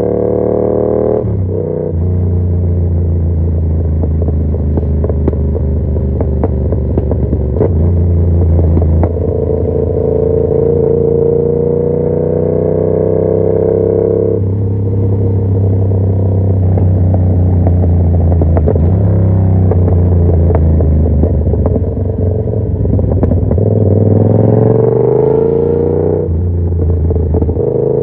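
2021 Yamaha MT-07's 689 cc parallel-twin engine running through an aftermarket SC Project CR-T carbon exhaust while riding. The engine note repeatedly climbs and then drops at each of several gear changes, with some revs falling and picking up again near the end.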